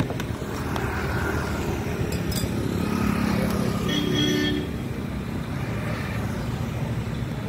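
Roadside background noise: a steady low rumble of passing traffic, with a brief higher-pitched tone about four seconds in.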